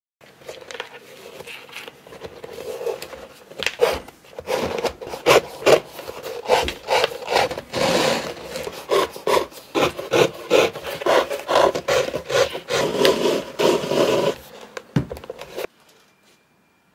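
Shoelaces pulled out through the eyelets of Alden 990 shell cordovan leather shoes: a long run of quick, uneven rubbing and scraping strokes that cuts off suddenly near the end.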